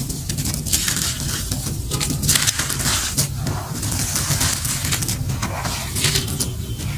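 Hands crushing crumbly, dry molded shapes of grey grit: a dense gritty crunching and crackling as chunks break apart, with grains pouring and pattering back onto the pile.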